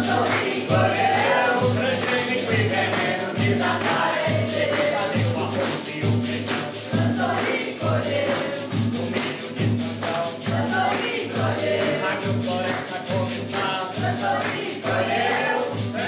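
A group singing a xote together to acoustic guitar, with a tambourine jingling and hands clapping a steady beat.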